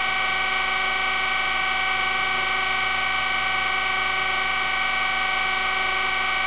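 Surface grinder with its wheel spinning while motorized electric centers turn a hardened drill bushing on a tapered mandrel: a steady machine whine made of several even tones, with the wheel not yet touching the work.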